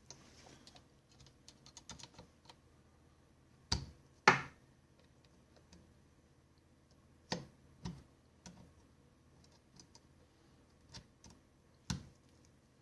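Scattered clicks and knocks from hands working on a laser printer's parts during disassembly: two louder knocks about four seconds in, then a handful of spaced clicks.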